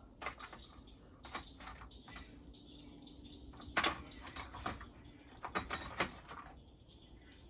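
Metal hand tools clinking and clattering as they are rummaged through, with a dozen or so sharp knocks, the busiest stretch past the middle.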